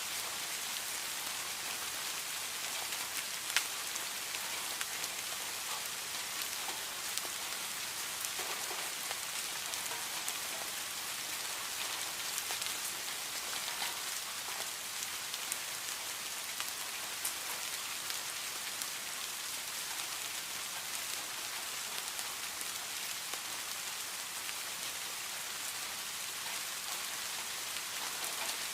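Steady rain, an even hiss of falling drops with scattered sharper drip ticks; one drop lands louder about three and a half seconds in.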